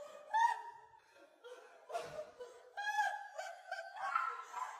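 People laughing hard, mostly a woman's high-pitched laughter in short repeated bursts, with a man laughing along; there is a brief lull about a second in.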